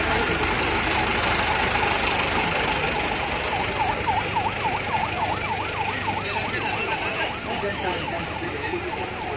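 Emergency vehicle siren in a fast yelp, sweeping up and down about four times a second, starting about four seconds in and fading after some three seconds. Underneath it is a loud steady background of noise and voices.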